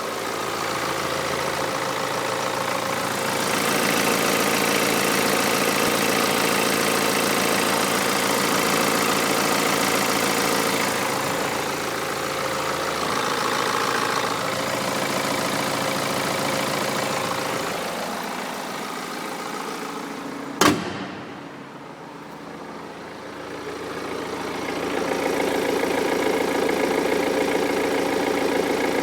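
BMW N47 four-cylinder diesel engine idling steadily after a timing chain repair. A single sharp knock comes about twenty seconds in, after which the engine sound is briefly fainter before returning.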